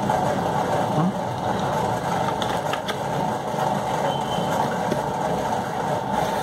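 A steady mechanical hum, like a motor running, with a few faint clicks about two to three seconds in.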